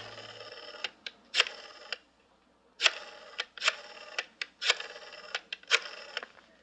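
Rotary desk telephone being dialed: a series of sharp clicks, each with a brief ringing after it, coming irregularly a few times a second, with a short pause about two seconds in.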